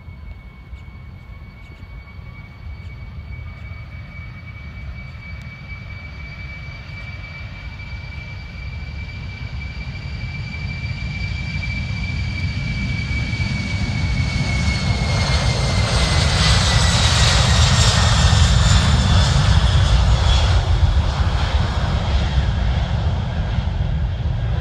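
Boeing 747-400's four jet engines at takeoff thrust as it rolls and lifts off: a steady high whine over a deep rumble, growing louder and dropping slightly in pitch as the jet passes, loudest about two-thirds of the way through.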